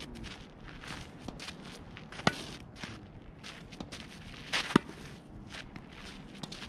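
A tennis racket hits the ball twice, two sharp pops about two and a half seconds apart, about two seconds in and again near five seconds. Between the shots, shoes scuff and step on the dirt court.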